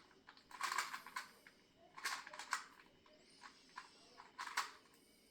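Plastic clicking of a 2x2 Rubik's cube being turned by hand, in several short bursts of quick turns.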